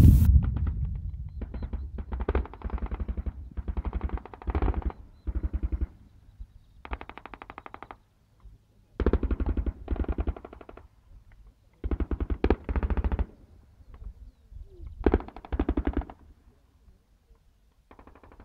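Bursts of automatic machine-gun fire, about nine bursts of up to a second and a half each with short gaps between them, opening with one loud bang that rings on.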